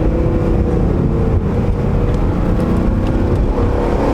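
Chevy SS's 6.2-litre V8 running loud and steady through headers and a straight-piped exhaust, holding a fairly even low engine note with slight wavering in pitch.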